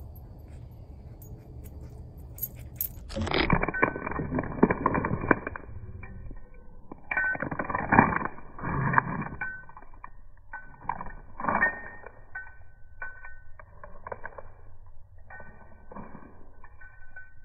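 A dog picking up and mouthing a small plastic toy close to the microphone: a sharp knock about three seconds in, then about five bursts of rattling and clattering, each a second or two long.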